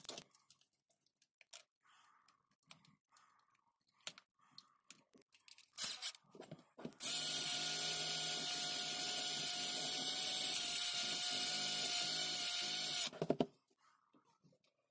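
Makita DHP482 cordless drill running at a steady speed for about six seconds, driving the taped end of a cast corner clamp, then stopping abruptly. Before it, duct tape crinkles and small parts click as the clamp is handled.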